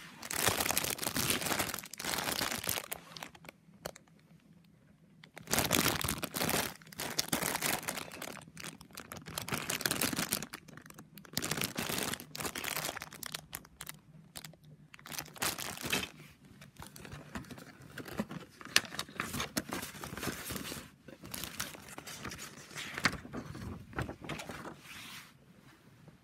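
Clear plastic bags holding a plastic model kit's parts crinkling as they are handled, in stretches of a few seconds with short lulls, the first lull after about three seconds.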